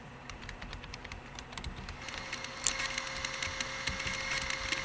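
Intro of an electronic track played on synthesizer: sparse glitchy clicks and crackles, then from about two seconds in a rising hiss with a steady high held tone.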